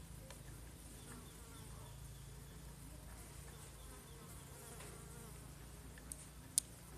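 Faint steady low hum, with two small sharp clicks near the end, the second much louder, from handling the parts of a chainsaw's worn recoil starter.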